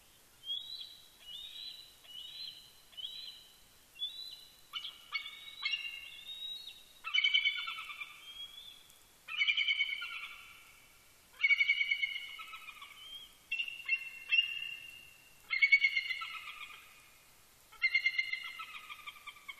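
Male bald eagle calling: a run of soft, high piping notes, then louder bursts of rapid, high-pitched chittering every couple of seconds.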